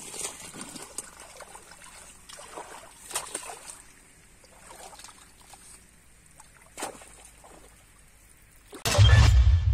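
A long-handled tool working mud and water in a flooded irrigation channel: water trickling and sloshing, with a few sharp knocks of the tool. About nine seconds in, loud music with heavy deep bass starts abruptly.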